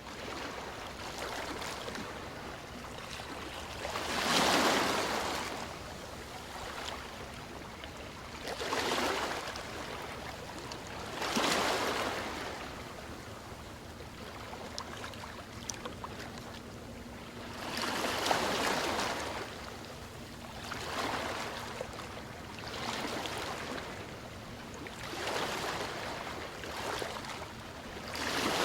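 Waves breaking on a sandy beach: a rush of surf swells and fades every few seconds. The biggest waves come about four, eleven and eighteen seconds in.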